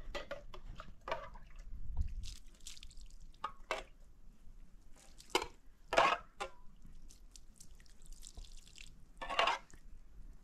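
Water splashing and dripping in short irregular bursts: a cluster of splashes around the middle and a longer pour-like splash near the end.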